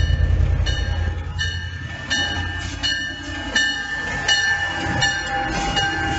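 Rio Grande Ski Train diesel locomotives passing close by with a deep engine rumble. Over it the locomotive bell rings steadily, a strike a little more often than once a second.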